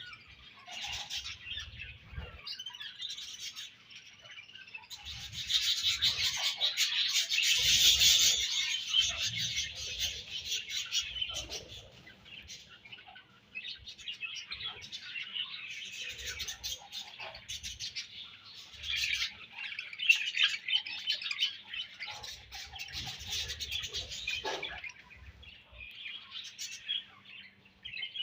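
A colony of budgerigars chattering and chirping, many birds at once, in swells that rise and fall, loudest a few seconds in.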